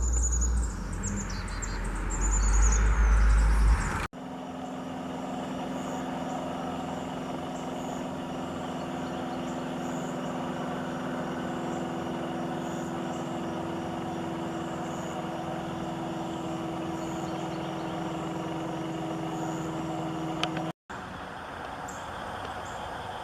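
A steady engine hum holding an even pitch, with faint high bird chirps over it. It follows a few seconds of low, uneven rumble with chirping at the start.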